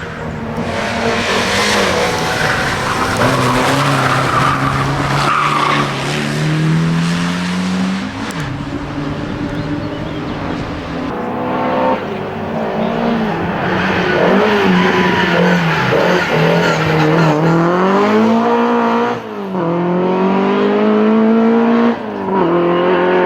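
Historic competition car engine revving hard, its pitch climbing and dropping back several times as it shifts gear and lifts off, with tyres squealing and skidding in the first few seconds.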